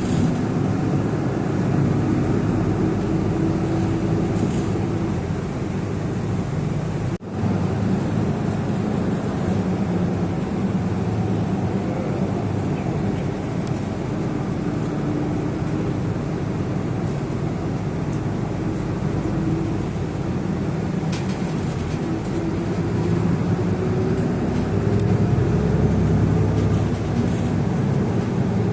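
Steady engine and road noise heard from inside a moving vehicle, with the engine's hum slowly rising and falling in pitch as it speeds up and slows down.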